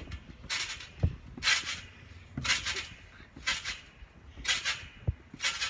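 Trampoline springs and mat creaking and thudding in a steady rhythm as a child bounces, about one bounce a second.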